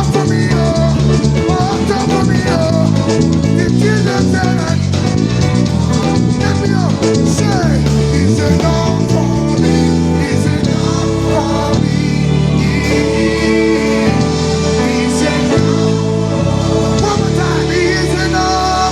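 Gospel worship band playing live, with the electric bass to the fore over drums and guitar.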